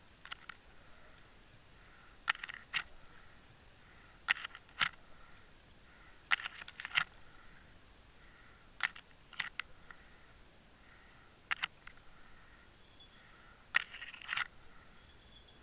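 Sharp clicks and knocks heard underwater through a camera housing. They come singly or in quick clusters of two or three, every second or two, over a faint steady hiss.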